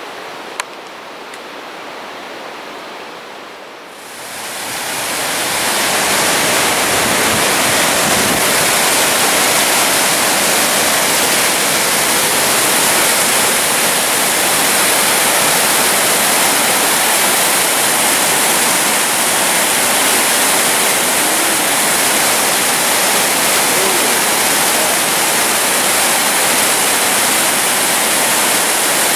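Whitewater mountain creek rushing over rocks. It is fainter and more distant for the first four seconds, then heard up close as a loud, steady rush of white water.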